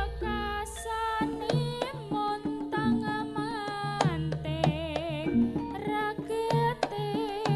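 Live jaranan music: sharp kendang hand-drum strokes and deep booms from a large barrel drum, about at the start and again four seconds in, under a sung melody with a wavering vibrato.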